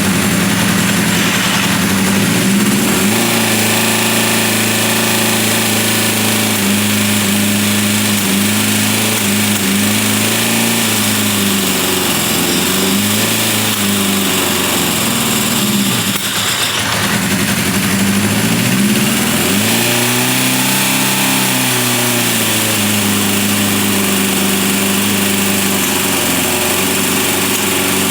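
1978 Honda CB550K's air-cooled inline four-cylinder engine running on its first start after restoration, idling while it warms up, its speed rising and falling gently a few times, most markedly around two-thirds of the way in.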